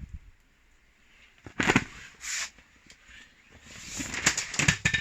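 Irregular bursts of vinyl rustling and crinkling with sharp clicks, denser near the end, as a deflated inflatable pool is handled.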